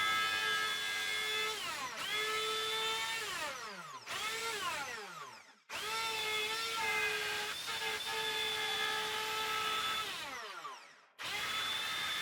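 Small electric power tool motor running at high speed with a steady whine. Twice it is switched off and spins down with a falling pitch, then starts again abruptly.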